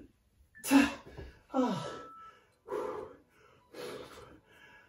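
A man breathing hard after an intense set of exercises, with loud gasping exhales about once a second, one of them a voiced, falling groan.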